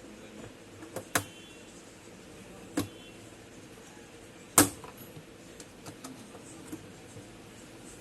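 A few sharp clicks and knocks of small hard objects being handled: a pair about a second in, another near three seconds, the loudest a little past four and a half seconds, then a few faint ticks.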